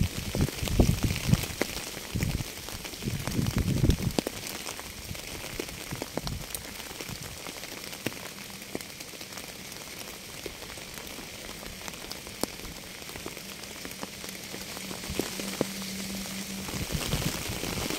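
Rain falling, with many sharp single drops hitting close by. A low, gusty rumble comes and goes through the first four seconds and returns near the end.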